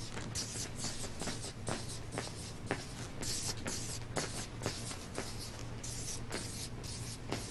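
Felt-tip marker scratching across a flip-chart pad in quick, looping strokes as zeros are drawn, with short taps each time the tip lands on the paper.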